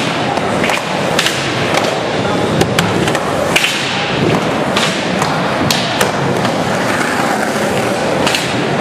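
Skateboard wheels rolling steadily over pavement, with a dozen or so sharp clacks and thuds from the board scattered through.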